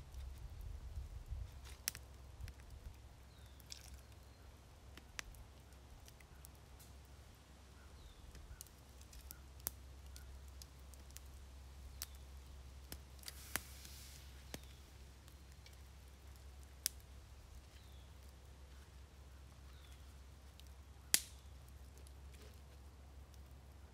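Quiet scattered clicks and small pops from a campfire and handled cooking gear, with a brief rustle about halfway through and one sharper click near the end, over a low steady rumble.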